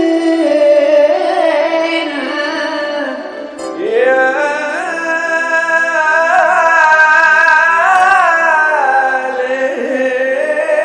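Music: the intro of an Egyptian mahraganat track, with a lead melody sliding and ornamenting between held notes over a sustained backing and no beat yet.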